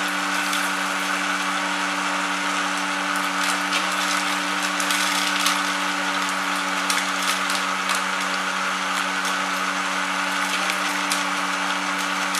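Homemade seed-husking machine running: a steady motor hum under a constant rattling hiss with many small scattered clicks.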